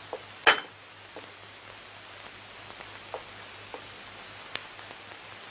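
Steady hiss and low hum of an old film soundtrack, broken by a few sharp clicks, the loudest about half a second in and another near the end.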